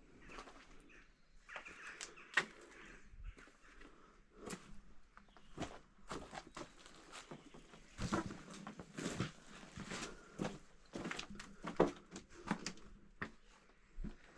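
Footsteps walking, with irregular scuffs and knocks from treading over debris.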